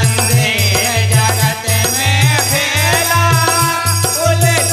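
Bundelkhandi folk bhajan music: a harmonium playing the melody over a dholak beating a steady rhythm, with bright jingling hand percussion.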